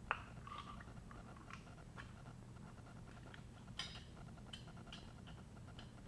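Faint scattered clicks and light taps of small metal parts of a gas water heater control valve being handled during disassembly, the sharpest right at the start, over a low steady hum.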